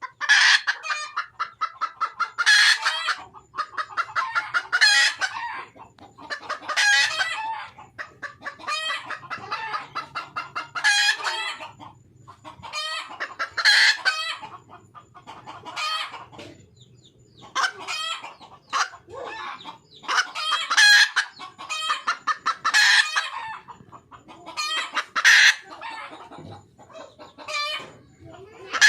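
Red junglefowl hen calling for a mate: loud, rapidly pulsed clucking calls repeated about every two seconds.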